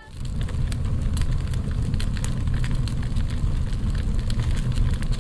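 Fire sound effect: a steady low rumble of burning flames with scattered sharp crackles.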